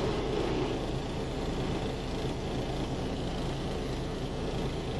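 Semi truck's diesel engine running steadily during a forced DPF regeneration, heard from inside the cab, with a strange sound coming from the front of the engine.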